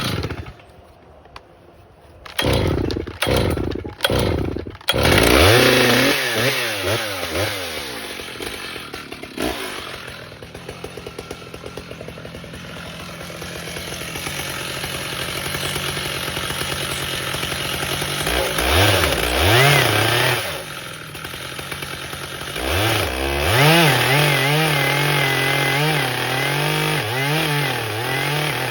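Stihl MS 881 two-stroke chainsaw fires in a few short bursts, then catches about five seconds in and runs on. It revs up and down and cuts into a large maple log, with long stretches of steady running under load.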